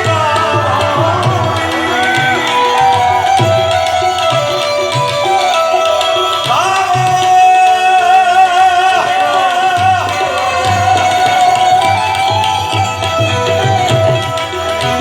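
Music with a tabla beat under a wavering, gliding melody line.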